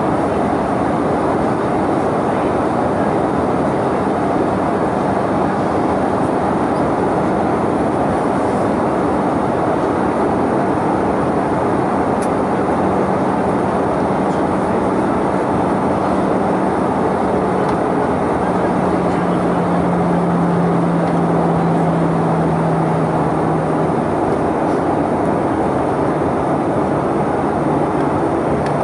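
Steady cabin noise of a jet airliner in descent, heard from a window seat beside the engine: a loud even rush of air and engine with a low hum under it. The hum steps down in pitch about two-thirds of the way through and again near the end.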